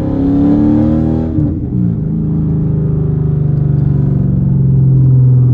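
Dodge Charger R/T's 5.7-litre HEMI V8 running through a straight-piped exhaust with the catalytic converters cut out, revved: the engine note climbs a little, falls about a second and a half in, then holds steady at a lower pitch.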